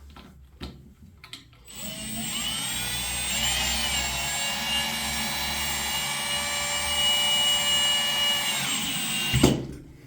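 Cordless drill/driver running steadily for about seven seconds as it drives a hinge-bracket screw into the fridge body. Near the end the motor winds down and there is a single sharp knock.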